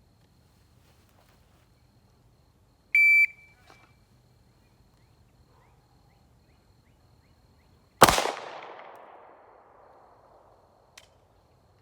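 Shot timer gives one short high beep, then about five seconds later a single 9mm shot from a Glock 43 pistol, its report fading out over about two seconds.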